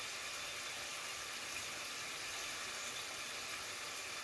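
Dumplings frying in oil in a pot, giving a steady, even sizzle.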